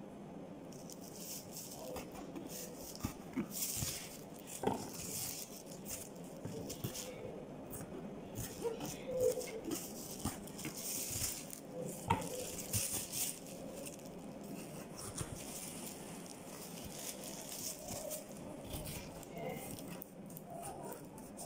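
Kitchen knife chopping vegetables on a cutting board: irregular taps and clicks of the blade striking the board, with a few louder knocks.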